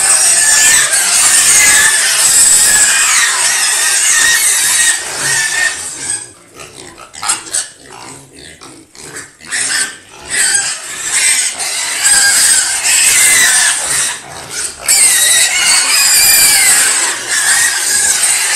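Piglets squealing loudly and continuously as they crowd and jostle over starter-feed pellets. A lull of a few seconds in the middle leaves only short clicks before the squealing starts again.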